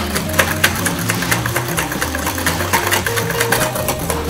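Wire balloon whisk beating an egg-yolk and sugar custard mixture in a stainless steel bowl: a rapid, even run of clicks and scrapes of wire on steel.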